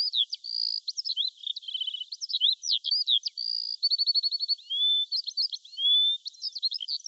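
A songbird singing a fast, varied song of upslurred and downslurred whistles, chirps and rapid trills of about ten notes a second. The song is high and thin, with no low sound under it.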